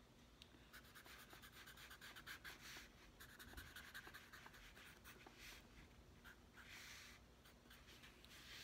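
Faint scratching of a felt-tip marker drawn across sketchbook paper, first in many quick short strokes, then in a few longer strokes.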